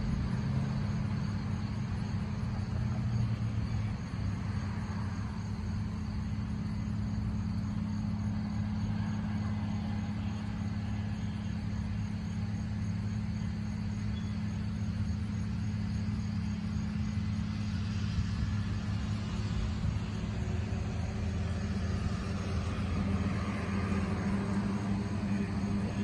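Combine harvester running steadily as it harvests corn: a continuous low engine drone.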